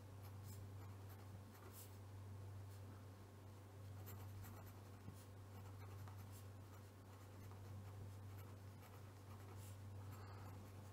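Faint scratching of a Stabilo felt-tip pen writing on paper, in short strokes, over a steady low hum.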